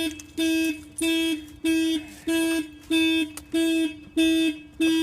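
Old Mercedes car alarm sounding through the horn: a steady honk pulsing on and off, about eight honks in five seconds. The anti-theft alarm has been set off by the door being forced open without the key.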